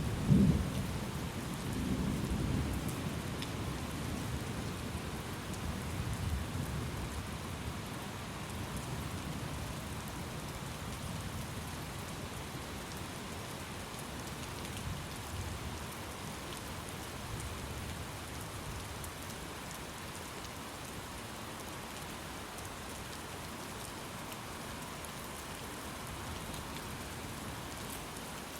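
Thunderstorm: steady rain with a loud roll of thunder at the start that fades away over the first few seconds, leaving the rain alone.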